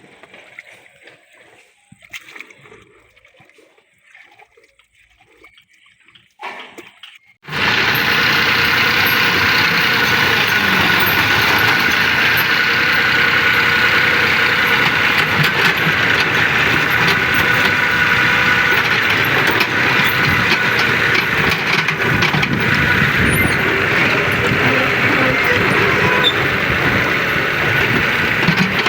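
After some seconds of faint, scattered site sounds, a machine engine starts up abruptly at full level, about seven seconds in, and keeps running steadily and loudly with a whining drone.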